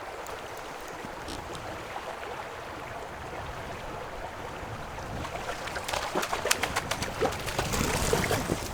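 River water running steadily. From about five seconds in, a quick run of splashing and clicking builds as a hooked fish thrashes at the surface while being played on a fly rod.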